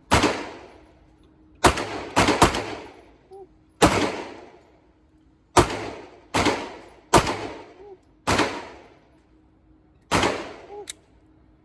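A string of about ten gunshots fired at an uneven pace, some in quick pairs. Each shot has a long echoing tail that fades over most of a second. The shots are most likely from an IWI handgun being fired in pairs.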